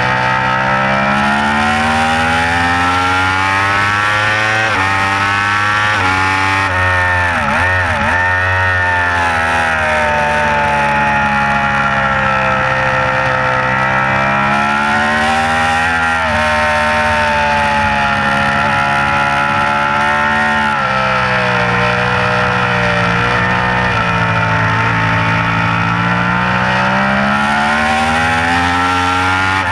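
2015 Yamaha R1's crossplane inline-four engine heard onboard, held in third gear, its revs rising and falling over and over as the throttle is opened and closed through the bends, over a steady rush of wind.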